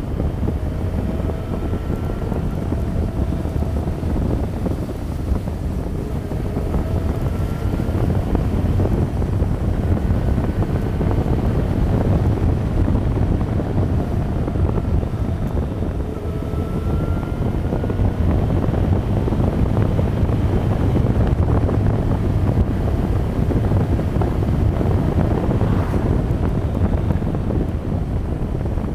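Motorcycle running along at road speed, largely buried under wind rumble on the camera microphone, with a few faint rising engine notes as it pulls.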